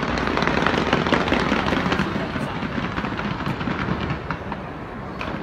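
Fireworks going off: a dense, rapid crackle of many small bangs that starts all at once and keeps going.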